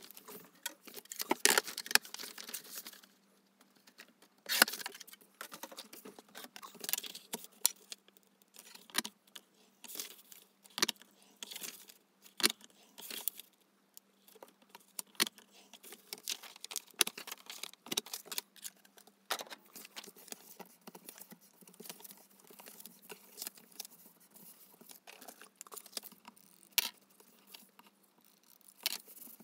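Green card stock being worked by hand on an envelope punch board: scored, folded and creased, with a glue tape runner pressed along it near the end. It is heard as irregular scrapes, taps and clicks.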